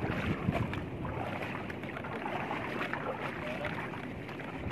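Shallow seawater splashing and sloshing with irregular small splashes as people wade through it.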